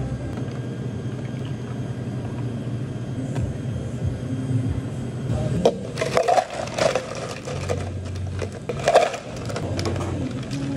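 Water poured from a pitcher over ice cubes in glasses. About halfway through, ice cubes are tipped into plastic cups and clatter for a few seconds, loudest near the end of the pour.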